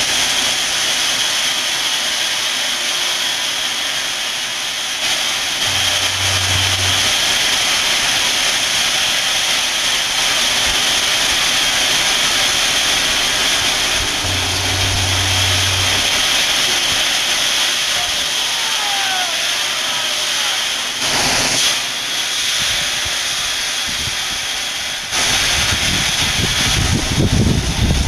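Crushed gravel pouring out of a raised tri-axle dump truck box in a steady hiss, with the truck's diesel engine running. A deeper, louder rumble comes in about 25 seconds in.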